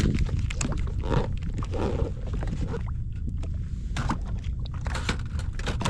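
Wind rumbling on the microphone, with scattered light clicks and knocks.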